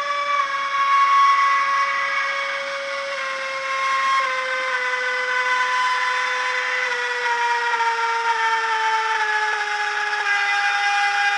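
ESU LokSound 5 DCC sound decoder playing the BR 185 electric locomotive's traction-converter whine through the model's upgraded speaker. The whine is steady and falls in pitch in small steps, as the electric's motor sound does when the locomotive slows.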